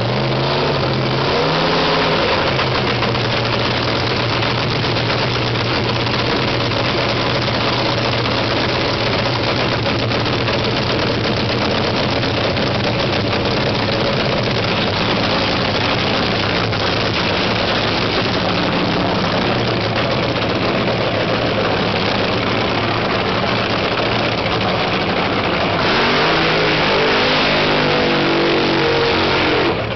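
Supercharged nitromethane-fuelled V8 of a nostalgia funny car firing up and running at a loud, steady idle through open individual exhaust headers. Near the end the sound grows louder, with the pitch rising and falling.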